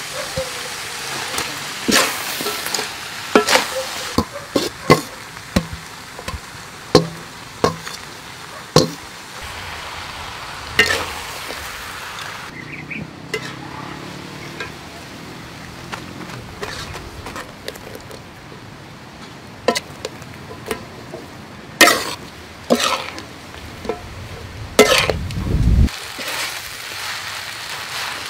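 Glass noodles and river prawns being stir-fried in a large aluminium wok: a sizzle under frequent sharp clinks and scrapes of a metal utensil against the pan. The sizzle thins for several seconds around the middle before the clinking picks up again.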